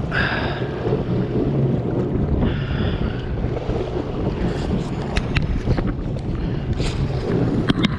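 Wind buffeting the microphone and choppy sea water sloshing around a jet ski in rough conditions, with a couple of brief hissing surges of water early on and a few short clicks later.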